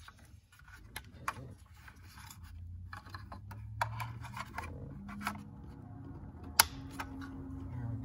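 Handling noises of a plastic ignition switch and SKIM immobilizer module being fitted together: scattered small clicks and rubbing, the sharpest click about two-thirds of the way in.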